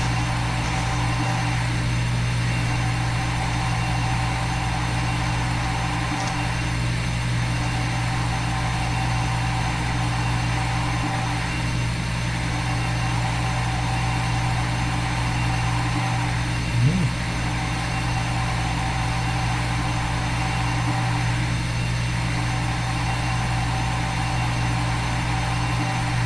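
Simulated CNC milling machine spindle and cutting sound from a machining simulator: a steady mechanical drone that repeats in a loop about every five seconds. About two-thirds of the way through there is one brief rising-and-falling chirp.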